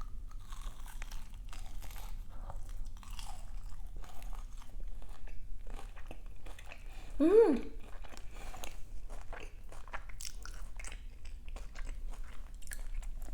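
Close-up crunchy bites and chewing of a crisp fried pastry with a mashed-potato filling: many short crackles and mouth sounds. About seven seconds in comes a short hummed 'mm'.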